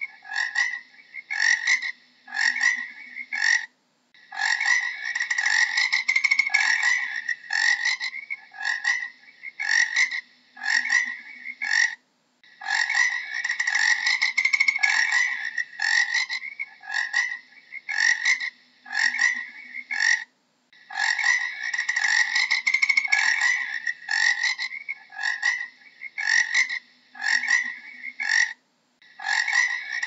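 Frogs croaking: short calls repeated about two or three times a second, in stretches where they run together. Brief pauses fall about every eight seconds.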